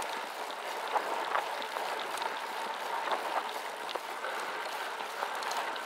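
Gravel bike tyres rolling over a dirt and gravel fire road: a steady crunching hiss with scattered small clicks from stones and rattles of the bike.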